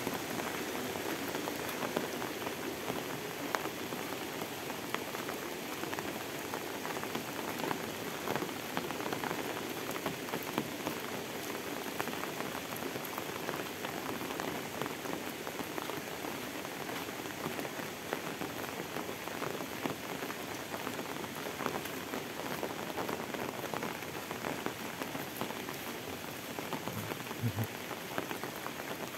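Steady rain falling: an even hiss made of many small, close-packed drop ticks.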